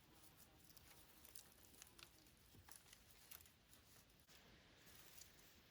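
Faint soft rustling and light crackles of moss being pulled apart and pushed into gaps in a stick shelter wall.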